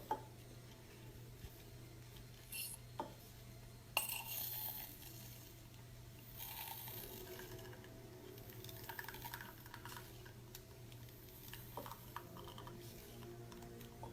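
Faint clinks and taps of tableware being handled, with sharper knocks about three and four seconds in, over a steady low hum.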